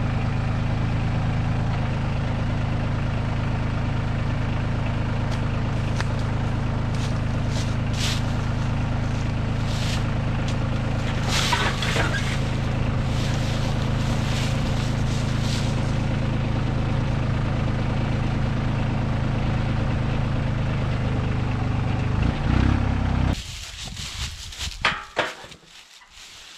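Compact tractor engine idling steadily, with footsteps crunching through dry leaves partway through. The engine sound cuts off abruptly about 23 seconds in, leaving quiet rustling and a few knocks.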